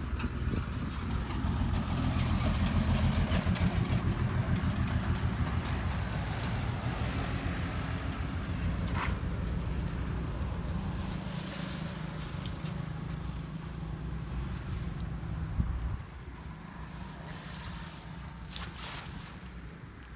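Low, steady rumble of a motor vehicle engine, loudest a few seconds in, that drops away suddenly about sixteen seconds in. A short sharp sound comes near the end.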